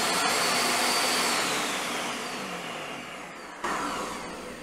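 Monsieur Cuisine Connect food processor's motor running on turbo, the blade spinning at top speed with a rushing noise and a high whine. The whine then falls as the motor winds down, with a short fresh surge about three and a half seconds in. This is the turbo pulse that flings leftover minced meat from under the blade onto the bowl wall.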